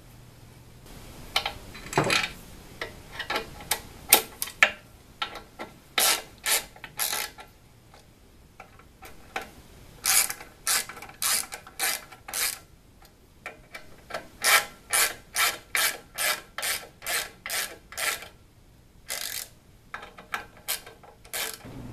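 Steel hex key working the socket-head cap screws that hold an aluminium plate to linear bearing blocks: spells of short metallic rasping clicks, about two a second, broken by pauses as it moves from screw to screw.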